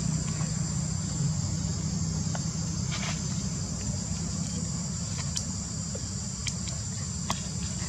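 Steady high-pitched insect chorus, crickets or cicadas, over a low rumble, with a few short sharp clicks scattered through.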